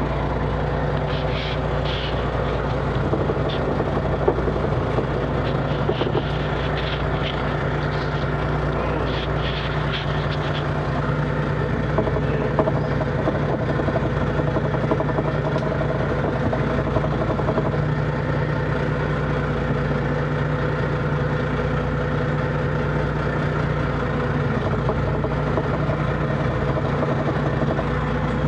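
Fishing boat's engine running steadily while the net hauler draws in a trammel net. A scatter of short high squeaks sounds in the first ten seconds or so.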